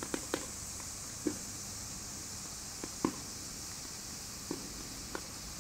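A blue Geysir Kaliber C firework burning with a steady hiss, broken by a handful of sharp crackles and pops at irregular times, the loudest about three seconds in.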